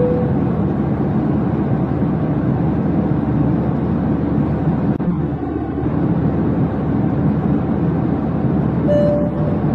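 Steady low drone of airliner cabin noise. A short steady tone sounds at the very start and a slightly higher one near the end.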